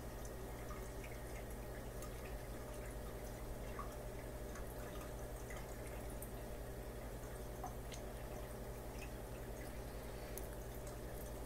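Steady low hum and water sounds of a running aquarium, with faint drips and small clicks scattered through.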